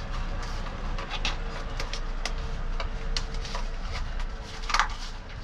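Irregular short clicks and scrapes of plastic zip ties and wiring being handled and pushed into place, with one longer rasp near the end, over a faint steady hum.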